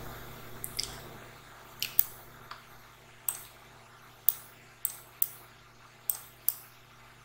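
Computer mouse clicking: about a dozen short, sharp clicks at an uneven pace, several in quick pairs, over a faint steady hum.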